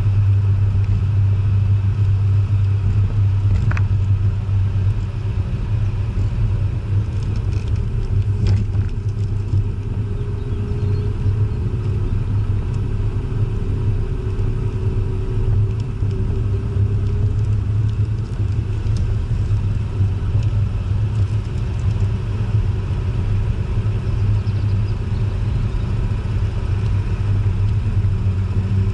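Jaguar E-type's engine running at a steady cruise, a continuous low drone mixed with tyre and wind noise.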